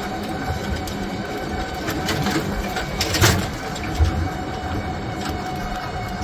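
Steady mechanical rumble with a faint steady hum, broken by a knock a little past three seconds in and another about four seconds in.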